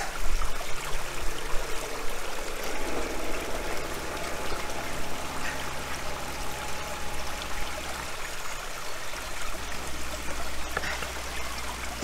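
Brook water rushing and trickling steadily.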